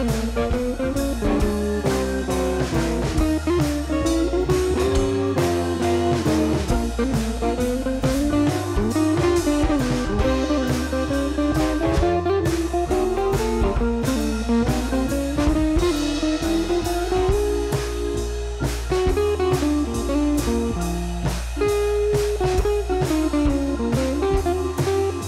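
Instrumental background music: a guitar melody over drums and bass with a steady beat.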